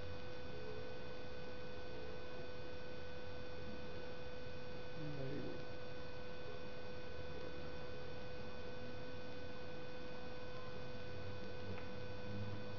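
A steady, unwavering tone with fainter higher overtones, held over a constant hiss and cutting off suddenly near the end.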